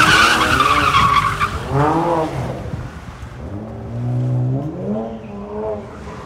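Car tires squealing in a slide for about the first second and a half. Then the engine revs up in several rising pulls, growing fainter as the car pulls away.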